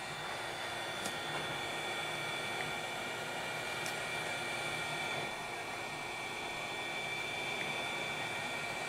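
Handheld hot-air heat gun blowing steadily: an even rush of air with a thin high whine from its fan. It is warming a phone's original back-cover adhesive tape so it can be reused.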